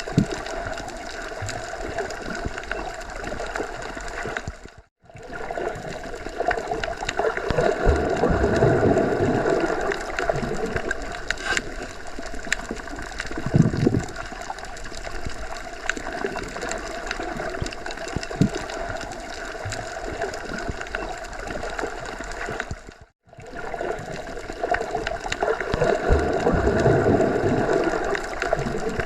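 Underwater ambience: a steady watery rush with swells of low bubbling and gurgling, cutting out briefly twice, about five seconds in and again about twenty-three seconds in.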